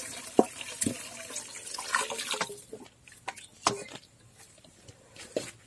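Hot water pouring from a steel pot into an aluminium kadai of ghee-fried pineapple, a steady splashing pour that stops about two and a half seconds in. A few sharp knocks of the wooden spatula against the pan come through the pour and the quieter stretch after it.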